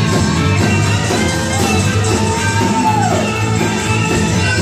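A live church band playing a loud, upbeat praise-break song on drum kit and guitar. About halfway through, one long note rises and falls.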